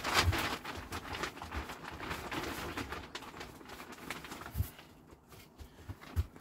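Compost being scooped and poured into a plastic plant pot: a loose, crumbly rustling, loudest in the first three seconds and then dying away, with a few dull thumps.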